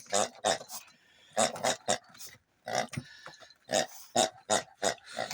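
Honking hippo dog toy giving repeated short, grunt-like honks at irregular intervals, squeezed by a Yorkshire terrier pushing on it with her snout, with a brief pause about halfway through.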